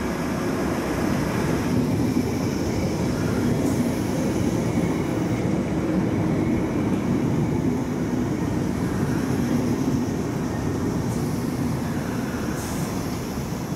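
London Underground 1973 Stock Piccadilly line train running into the platform and slowing to a stop: a steady rumble of wheels on rail that eases slightly near the end, with a few brief high-pitched noises.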